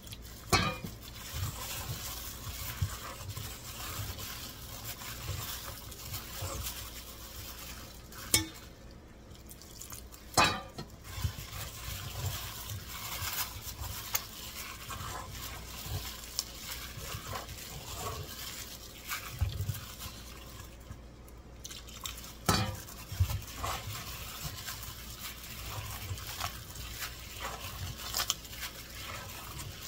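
Thick gram-flour pakora batter with sliced onions being mixed by a plastic-gloved hand in a stainless steel bowl: a steady wet squishing and stirring, broken by a few sharp clicks.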